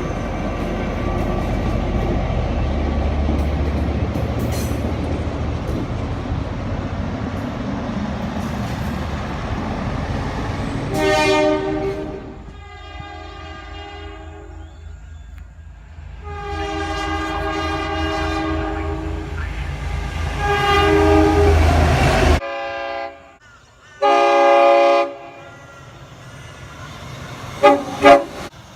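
Train horns sounding several times, each a chord of several tones. For the first ten seconds or so a train rumbles past, then come a series of horn blasts, some long and some short. The sound cuts off suddenly about two-thirds of the way through, then comes one more short blast and two quick toots near the end.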